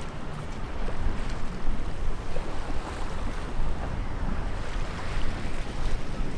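Wind buffeting the microphone over the wash of choppy sea water around a moving boat, a steady uneven rush with gusty low rumble.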